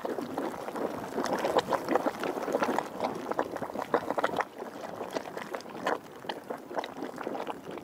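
Dog Bone Geyser in very low eruption: hot water splashing and gurgling irregularly inside its vent. The splashing is busiest at first and thins out after about four and a half seconds.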